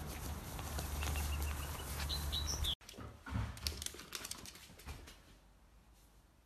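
Wind rumbling on the microphone, with a few short high bird chirps, for the first three seconds. After an abrupt cut, a fleece blanket rustles with scattered clicks, and the sound then fades down to faint room tone.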